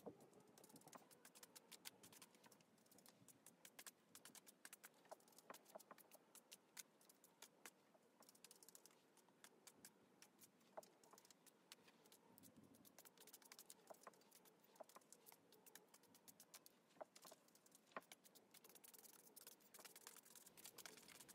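Near silence with faint, irregular light clicks and taps: a chip brush dabbing paint on a palette and dry-brushing a sketchbook page.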